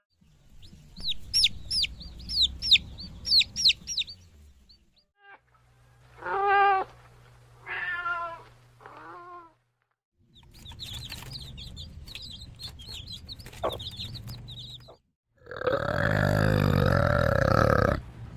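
A string of animal calls cut together with short silent gaps. First comes quick high chirping, then two pitched calls, more high chirping, and near the end one long, loud call over a low rumble.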